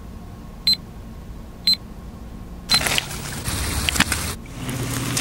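Film-leader countdown beeps: two short high beeps about a second apart over a faint hum. A little under three seconds in, the sound cuts abruptly to louder gritty crunching and crackling with scattered sharp clicks.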